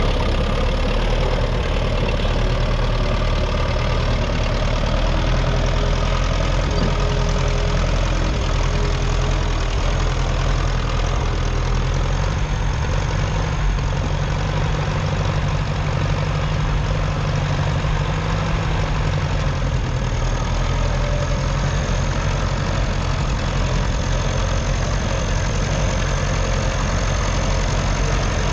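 1951 Ferguson TED20's 2.1-litre four-cylinder TVO/petrol engine running steadily, its note shifting slightly about twelve seconds in.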